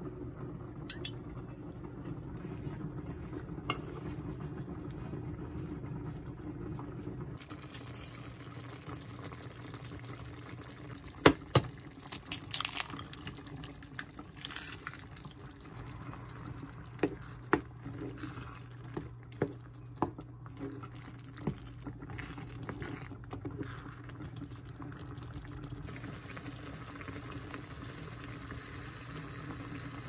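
Tomato stew cooking in a pan: liquid bubbling over a steady low hum, with sharp clicks and knocks of utensils against the pan from about 11 to 22 seconds in.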